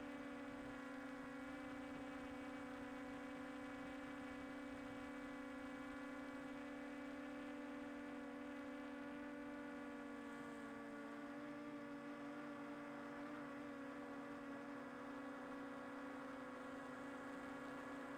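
Small quadcopter drone's propellers humming: several close, steady tones from the rotors, with a few shifting slightly in pitch about ten seconds in as the motor speeds change.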